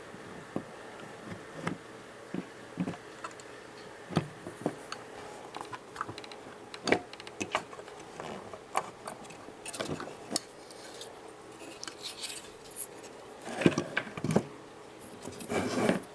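Hands working on tools and parts: scattered clicks, taps and metallic clinks, busier near the end, over a faint steady hum.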